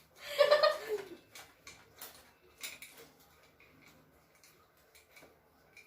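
A few light, irregular clicks and taps, typical of parts of a stand electric fan being handled and fitted during assembly. They die away after about three seconds.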